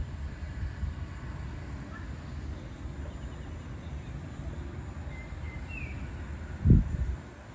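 Wind buffeting the microphone with a steady low rumble, and a strong gust thumping against it about a second before the end. A few faint bird chirps sound in the background.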